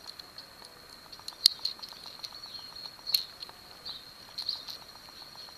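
A few light, sharp clicks and taps of small metal mini tools handled with a metal keychain capsule. The clearest come about a second and a half in and just past three seconds, with softer ones later.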